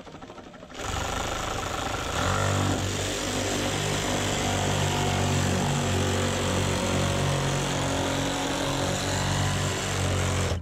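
Cordless reciprocating saw cutting through black corrugated plastic culvert pipe. It starts sharply about a second in and then runs loudly and steadily, with a low even drone from the saw, until it stops suddenly at the end.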